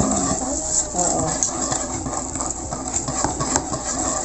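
Wire whisk stirring cake batter in a bowl, with irregular clicking and scraping of the wires against the bowl as flour is worked in.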